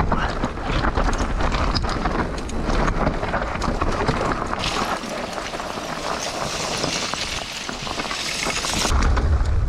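Mountain bike riding fast down a rough dirt trail: wind buffeting the microphone, with the tyres and bike rattling and clattering over the ground. About halfway through the low rumble drops and a bright hiss takes over, and the rumble comes back near the end.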